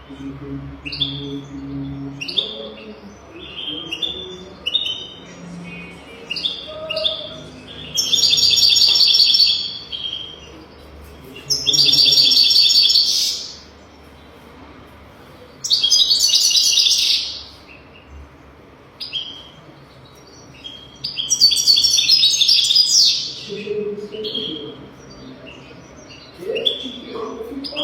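European goldfinch singing: short high call notes alternate with five loud bursts of rapid, jangling twittering song, each about two seconds long. It is a tutor song of the kind used to teach young goldfinches to sing.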